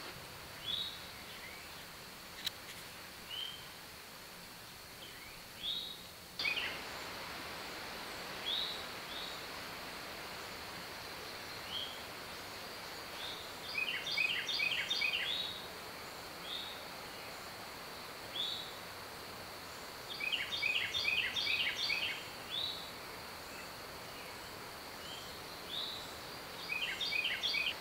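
Songbirds calling: short high whistled notes that fall in pitch, repeated every couple of seconds, with three bursts of rapid chattering trills in the middle and near the end. A thin, steady, high insect hum runs underneath.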